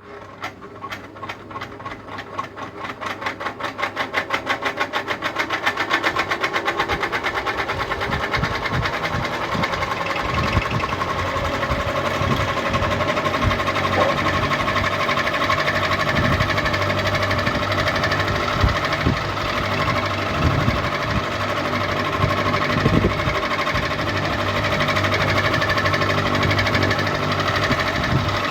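Ceiling fan spinning up after being switched on: a rhythmic ticking that quickens and grows louder over the first several seconds, then settles into a steady running hum at full speed.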